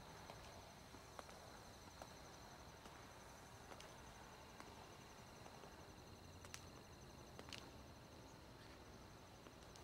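Faint night ambience of crickets chirping in a steady, high, even trill, with a few scattered soft ticks.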